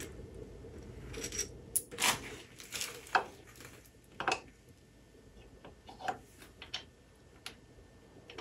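Small metal mounting parts, a light bracket and its bolts, clinking and tapping as they are handled and fitted to a motorcycle's front fork: a scatter of short, separate clicks, the loudest in the first half.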